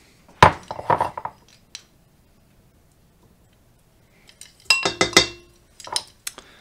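A tablespoon measure clinking and tapping against bowls as grated orange rind is scooped and knocked into a stainless-steel mixer bowl. A few sharp clinks come at the start, then a pause, then a quick run of clinks about two-thirds of the way through and one more near the end.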